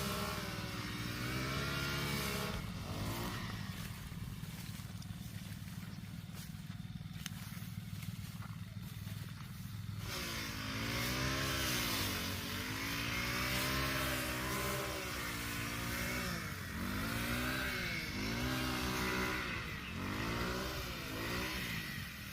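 Small engine of a grass cutter (brush cutter) cutting rice stalks, its pitch dipping and recovering every second or two, over a steadier low engine hum. Between about three and ten seconds in, only the low hum is heard.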